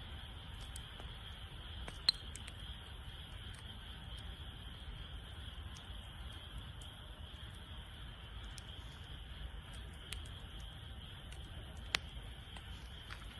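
Wood campfire crackling, with scattered small pops and two sharper pops, about two seconds in and near the end, over a low steady rumble.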